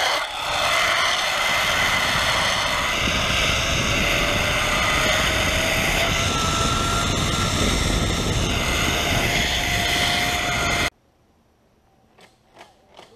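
Zip line trolley running down the steel cable: a loud steady whirring rush with a faint whine that rises slightly in pitch, cutting off abruptly near the end, followed by a few faint clicks.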